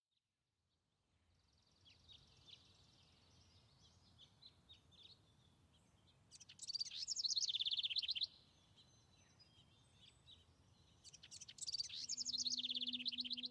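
Songbirds singing, with two loud songs from a bird close by, each a run of quick repeated notes falling in pitch and lasting about two seconds, over fainter calls from other birds.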